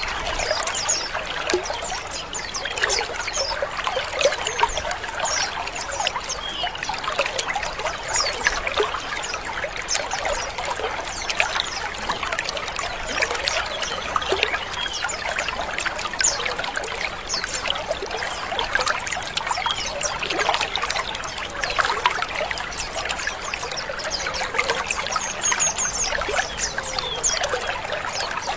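A colony of white-eyes (pleci) twittering together: a dense, continuous mass of short, harsh 'ngrik' chirps from many birds at once, with thin high call notes over the top.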